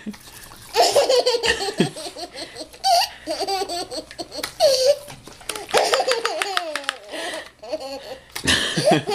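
A toddler laughing hysterically in repeated bouts of belly laughs, starting about a second in, each burst wavering up and down in pitch with short breaths between.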